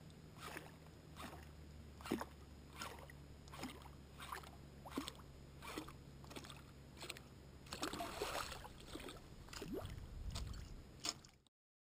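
Small waves lapping against the side of a boat, a faint slap about every two-thirds of a second over a low steady hum.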